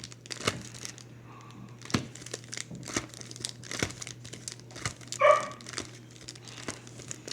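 Trading-card packs and box wrapping being handled, crinkling with small taps and clicks. A dog barks about five seconds in, the loudest sound here.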